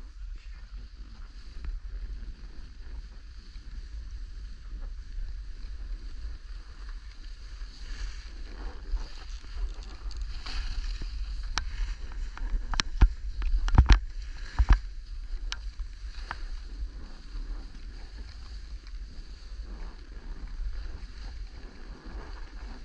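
Steady low rumble of wind and motion noise on a camera microphone during snowboarding, with a cluster of sharp click-clack knocks a little past the middle, the loudest two close together.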